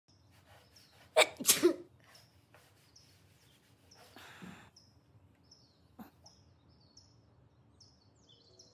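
A woman sneezes once, loud and sudden, about a second in. Small birds chirp faintly and repeatedly in the background, and a brief rustle comes about four seconds in.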